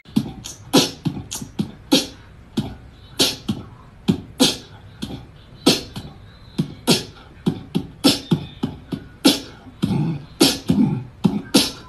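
Background music of beatboxed vocal percussion: sharp click- and snare-like hits, about two or three a second, with deeper kick-like thumps coming in near the end.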